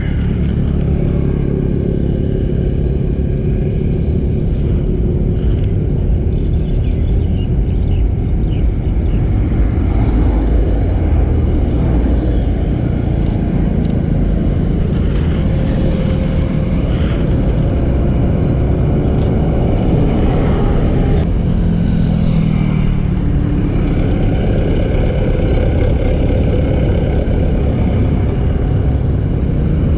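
Road traffic going by: car and motorbike engines with a steady low rumble, one vehicle passing more closely a little after two-thirds of the way through.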